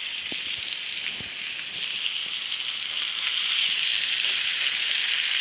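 A lamb shoulder chop and mushrooms sizzling in hot oil and butter in a cast-iron skillet: a steady frying hiss that grows a little louder about two seconds in, with a couple of faint knocks as the mushrooms are set in the pan.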